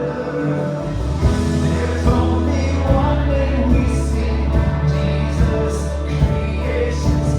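Worship band playing a song with voices singing; a heavy bass and drums come in about a second in, with a steady beat after that.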